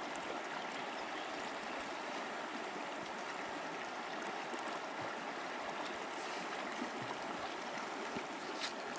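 Steady rush of a river's current running over shallow stones.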